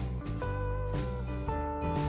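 Background music: an instrumental blues tune with a steady beat, held notes over a bass line.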